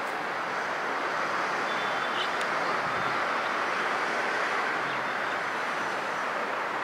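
Steady rushing roar of an Airbus A321neo airliner's jet engines as it flies past on approach with its landing gear down, holding an even level throughout.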